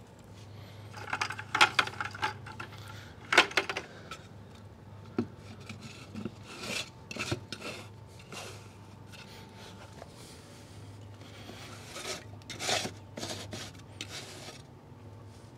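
Irregular scraping, rubbing and clicking of hands and tools on a pool pump's plastic housing and metal band clamp, as the clamp joining the pump's two housing halves is snugged down.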